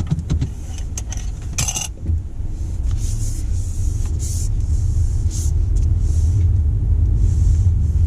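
Interior drive noise of a Toyota C-HR with its 2.0-litre four-cylinder engine: a steady low rumble of engine and road, rising a little about two and a half seconds in. A few sharp clicks come near the start.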